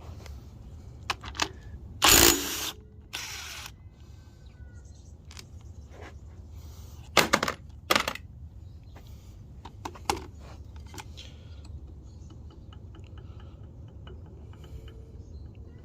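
Metal tools and engine parts clinking and clanking as a diesel engine is taken apart. There is a loud short burst about two seconds in, a second shorter one just after, and sharp metallic clanks around seven to eight seconds and again near ten seconds.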